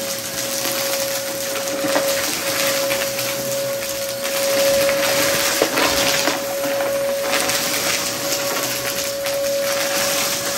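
VacMaster vacuum cleaner running with a steady motor whine, sucking up crunchy debris from under a rug, with several short crackling bursts.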